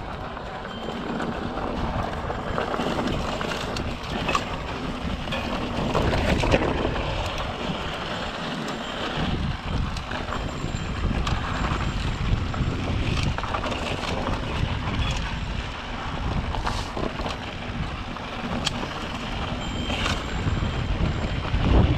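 Wind buffeting the microphone over the rumble of an electric mountain bike's tyres rolling along a dirt trail, with scattered clicks and knocks as the bike goes over bumps.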